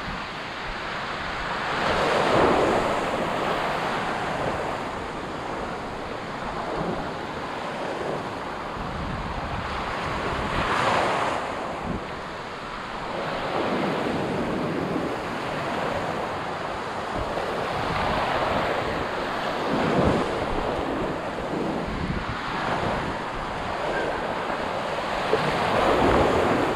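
Surf breaking and washing up the beach in repeated surges every several seconds, with wind buffeting the microphone.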